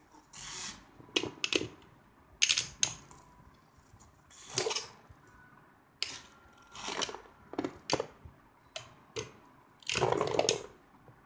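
Two Beyblade spinning tops whirling in a cardboard stadium, knocking together with sharp clacks and brief scraping rattles at irregular moments, with a longer rattling clash about ten seconds in.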